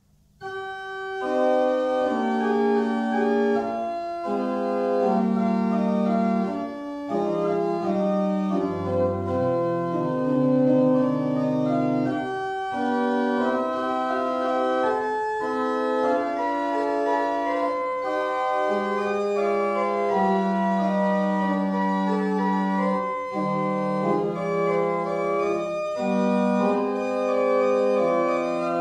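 Church pipe organ playing in sustained full chords, the held notes changing about every second, with a deep pedal note coming in briefly about nine seconds in; it is the closing voluntary of the service.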